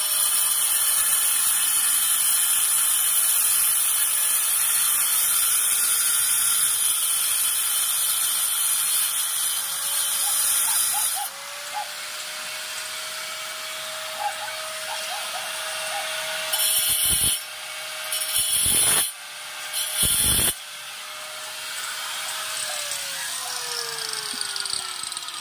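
Handheld electric power tool boring into a cement wall: a steady motor whine with a gritty hiss for about eleven seconds, then a lighter run, three short bursts about two-thirds of the way through, and the motor winding down in pitch near the end.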